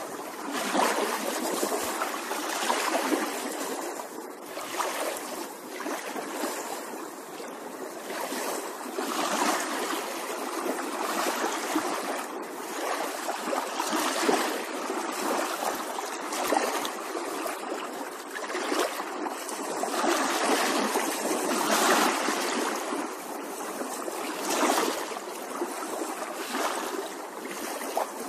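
Koi pond water splashing and trickling as koi stir and gulp at the surface, swelling and fading unevenly.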